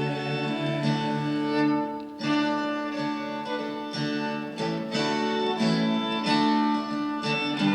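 Instrumental break of a folk song: a fiddle plays the melody over acoustic guitar accompaniment.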